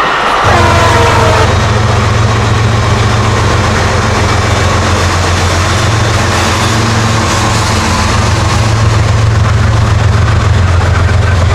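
Long Island Rail Road train with DM30AC dual-mode diesel locomotives and bilevel coaches passing close. The horn's last tones fall in pitch and fade in the first second or so, then a loud, steady engine drone and rolling rail noise continue.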